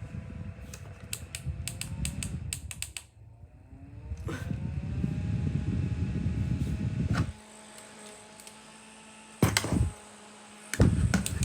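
Small clip-on fan with clear plastic blades running, with a string of clicks in the first few seconds and its motor pitch then rising as it speeds up. Air from the blades hits the microphone as low wind noise, which drops away about seven seconds in and comes back near the end.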